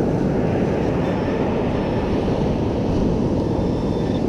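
Storm wind buffeting the microphone in a steady, loud low rumble, with surf mixed in. A metal detector's faint high electronic tone sounds off and on above it.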